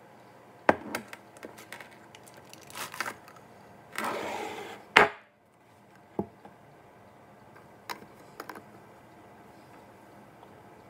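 A series of irregular sharp knocks and clicks, like hard objects being handled and set down. About four seconds in there is a short rushing noise that ends in the loudest knock.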